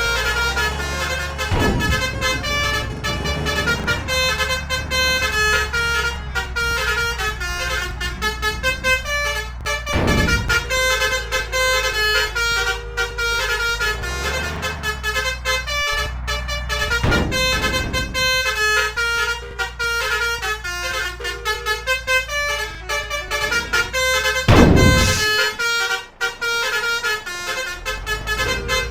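Telolet-style basuri musical bus horns playing stepped melodic tunes that keep changing notes over the low hum of bus engines. Four short loud rushing swells break through, about 2, 10, 17 and 25 seconds in.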